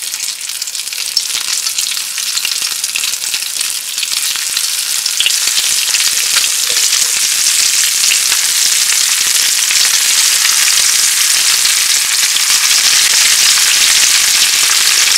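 Stuffed mussels coated in a wet spice paste deep-frying in hot oil: a steady sizzle that gets louder about four to six seconds in, with light crackling. The water in the coating makes the oil spatter.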